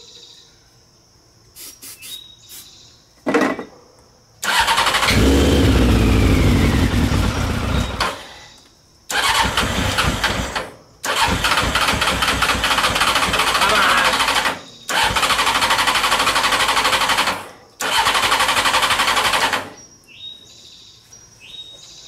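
Honda CBR600 inline-four's electric starter cranking the engine in five spells of a few seconds each, after a few light clicks, without the engine catching and running: it is getting no fuel, the fuel line to the carburetors having been left disconnected.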